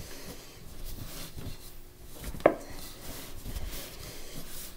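A hand-held pastry blender cutting shortening into flour in a mixing bowl: soft, irregular scraping and rubbing, with one sharp knock of the blender against the bowl about halfway through.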